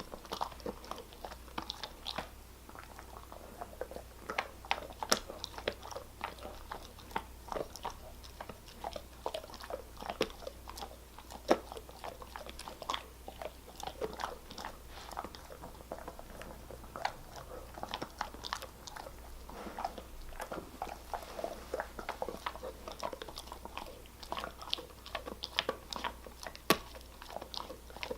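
German Shepherd chewing and crunching a hard dog treat, with irregular sharp crunches and bites throughout.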